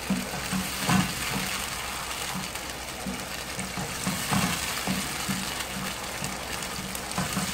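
Tomato and onion sauce sizzling in a nonstick frying pan while a wooden spoon stirs it, with irregular scrapes and soft knocks of the spoon against the pan.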